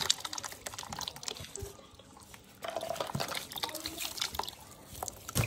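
Water poured from a plastic jug over hands, splashing and dripping into a basin as the hands are rinsed. The splashing dies down briefly about two seconds in, then starts again.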